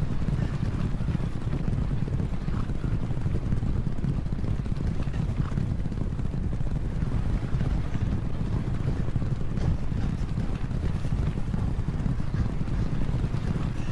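Racehorses galloping as a pack: a steady, low rumble of many hooves on the track.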